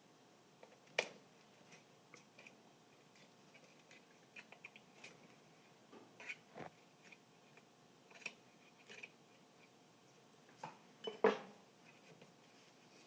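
Hands and small tools handling hard parts on a workbench: scattered light clicks and taps, with two louder knocks, one about a second in and one near the end.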